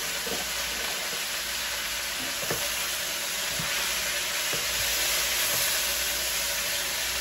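Sliced onions sizzling steadily in hot oil in a wok, stirred with a utensil that taps the pan a few times.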